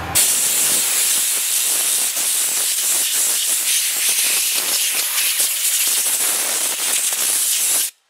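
Compressed air blasting from a handheld air blow gun over the cooling fins of an RV absorption fridge, one long steady hiss that cuts off suddenly near the end.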